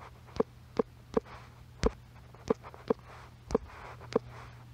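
About eight sharp taps, a little under half a second apart and unevenly spaced, as a password is typed on a smartphone's on-screen keyboard.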